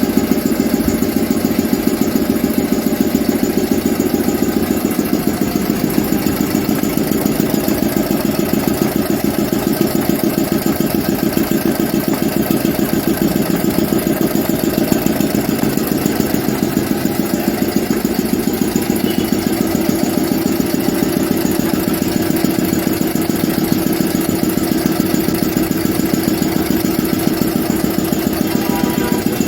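A 2 hp industrial air compressor running steadily, with a rapid, even pulsing beat.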